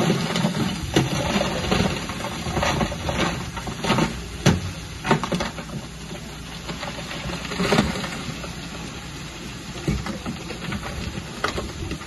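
Bulldozer's diesel engine running steadily, with irregular sharp clanks and knocks of tracks, blade and stone throughout; the loudest knocks come about four and a half and eight seconds in.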